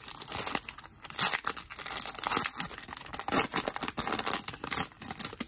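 Foil wrapper of an Upper Deck Marvel Annual trading card pack being torn open and crinkled by hand: irregular tearing and crinkling rustles.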